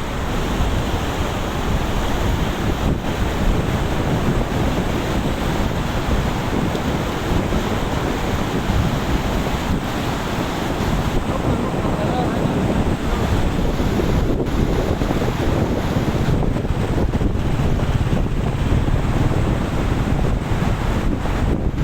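A river swollen by floodwater rushing steadily, with wind buffeting the microphone.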